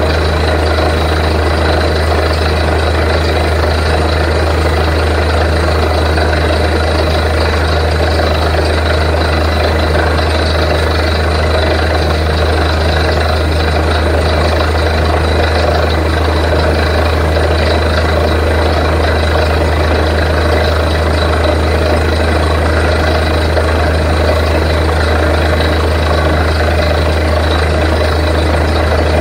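Truck-mounted borewell drilling rig's diesel engine running steadily, a loud, constant low drone with no let-up.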